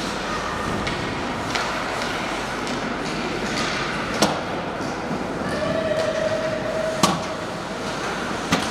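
Ice hockey game on the rink: a steady hiss of skates on the ice, broken by three sharp clacks of stick and puck, about four, seven and eight and a half seconds in. A steady held tone lasts about a second and a half, past the middle.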